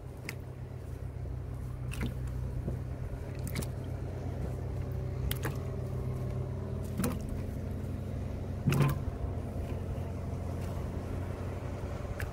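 Chunks of vegetables and fruit, then a piece of kelp, dropped one at a time into a large aluminium pot of soy-sauce stock, each landing with a short splash; there are about six of them, with the biggest about three-quarters of the way through. A steady low hum runs underneath.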